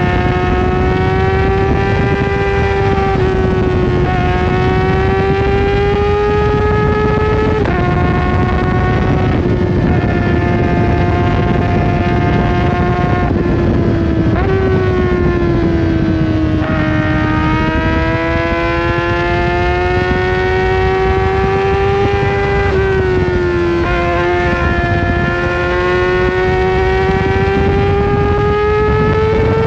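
Kawasaki ZX-4RR's inline-four engine running high in the revs through a full exhaust. Its pitch climbs slowly, then drops or jumps abruptly several times as the rider shifts gears, over a steady rush of wind noise.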